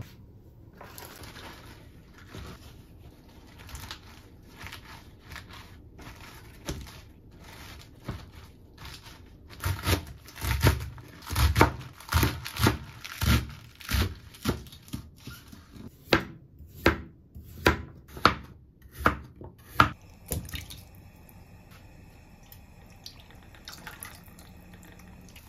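Kitchen knife chopping leafy greens on a plastic cutting board: a steady run of sharp knocks, about two a second, after some softer clicks of the greens being handled.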